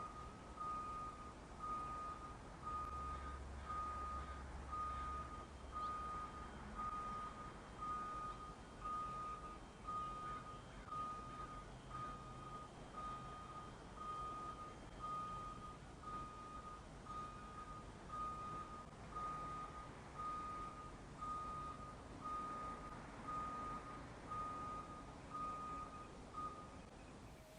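School bus backup alarm beeping steadily at one pitch, a little more than once a second, heard from a distance. A low rumble swells briefly a few seconds in, and the beeping stops near the end.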